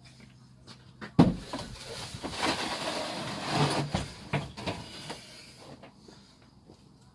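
A sharp knock about a second in, followed by a few seconds of clattering and rustling with several smaller knocks, typical of objects being handled and moved.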